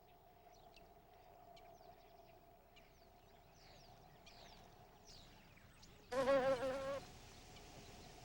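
Flies buzzing: a faint steady hum with scattered faint high chirps, then a loud, wavering buzz about six seconds in that lasts about a second. The buzz is typical of a fly beating its wings while stuck on sticky plant leaves.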